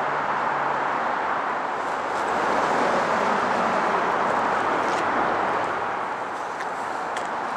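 Steady roar of vehicle noise from traffic and an approaching GO Transit bi-level commuter train. It grows a little louder a few seconds in and eases near the end.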